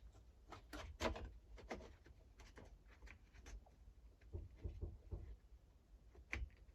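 Faint, irregular clicks and taps of small plastic and metal parts being handled and fitted while a petrol hedge trimmer is reassembled.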